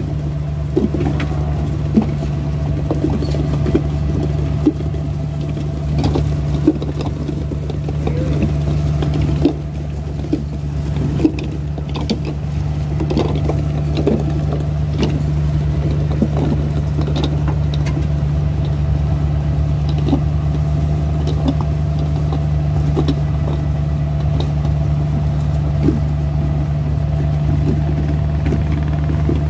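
A fishing boat's engine running steadily in a low, even drone, with scattered short knocks and clatters throughout.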